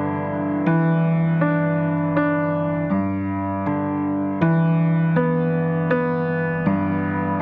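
Background music: piano or electric piano playing sustained chords, a new note struck about every three quarters of a second.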